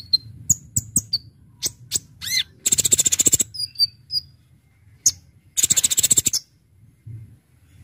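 Kolibri ninja sunbird singing: a string of sharp, very high chips and short whistles, broken by two fast, rapid-fire trills about three and six seconds in.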